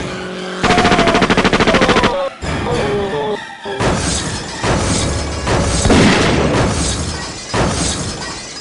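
Dubbed-in action sound effects: a burst of rapid machine-gun fire, then a falling whistle, then a string of explosion blasts from about four seconds in.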